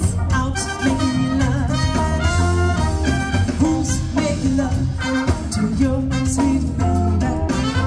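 Band music with singing over a steady drum beat and held bass notes.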